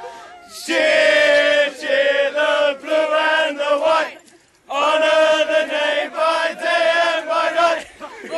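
A group of male voices chanting in unison in a steady rhythm, in two phrases with a short break about four seconds in.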